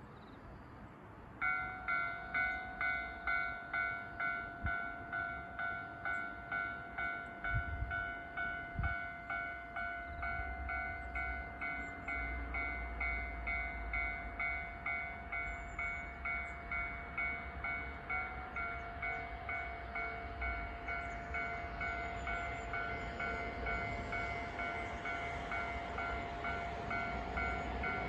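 Railway warning bell ringing in a steady, even rhythm of about two electronic dings a second, starting a little after a second in: the alarm that a train is approaching. A low rumble comes in under it about ten seconds in.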